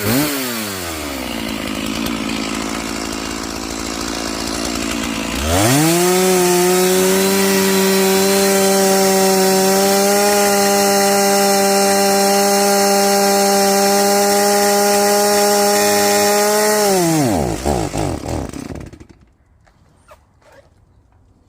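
Stihl MS461 two-stroke chainsaw dropping back to a lower speed, then revving up about five seconds in and held at a high, steady pitch for some eleven seconds. Near the end it sputters, falls in pitch and dies: the saw has run out of fuel.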